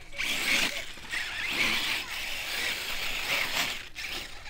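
Radio-controlled off-road car's motor and drivetrain buzzing as it climbs a loose dirt slope, the sound swelling and fading with the throttle, with a short dip near the end.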